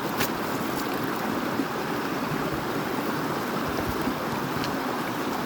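River water rushing steadily over rocks, with a couple of brief clicks.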